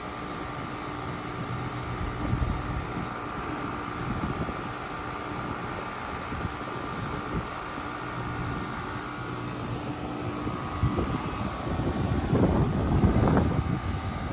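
2023 Carrier Sentry heat pump outdoor unit running through a short defrost cycle: a steady mechanical hum with a held whine that fades about ten seconds in, then louder, uneven rushing noise near the end.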